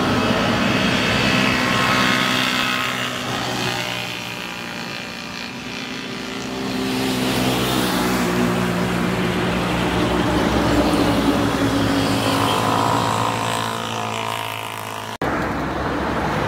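Road traffic: engines of passing vehicles humming, their pitch and loudness rising and falling as they go by. An abrupt cut near the end brings in approaching tractors.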